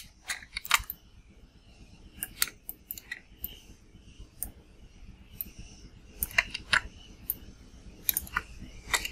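Computer mouse clicking in short, irregularly spaced clicks while brush strokes are dragged out in a drawing program, over a faint low hum.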